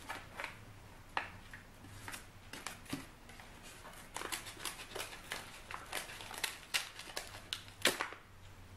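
Scissors snipping through the brown paper of a mailed package, a run of irregular crisp cuts mixed with paper crinkling, one louder snip near the end.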